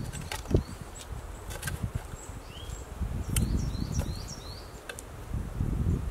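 A metal spade scraping and working loose forest soil, with thuds and rustles of earth and leaf litter and a few sharp clicks. Short high chirps from small birds come through in the middle.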